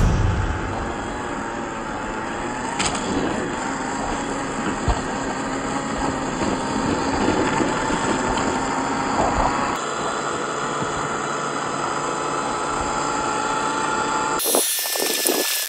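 A 1/12-scale MN-86KS RC truck driving off-road: its small electric motor and gears whine steadily, the pitch wavering a little with throttle. A brief burst of hiss comes near the end.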